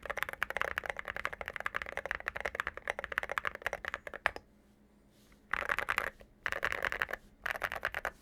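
Mechanical keyboard typing on a QK65 with lubed Tecsee Sangria linear switches, an FR4 plate and SA keycaps. Fast continuous keystrokes run for about four seconds, then stop for a second, then come back as three short, rapid flurries.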